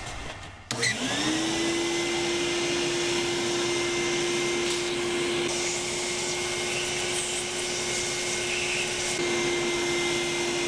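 Vacuum cleaner switched on about a second in, its motor spinning up quickly to a steady whine with a rush of air, used to suck dust out of a laptop's fan opening.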